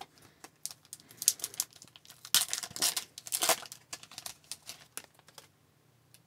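Foil wrapper of a 2020-21 Upper Deck Extended Series hockey card pack crinkling and tearing open, loudest from about two and a half to three and a half seconds in, then fainter rustling as the cards are pulled out.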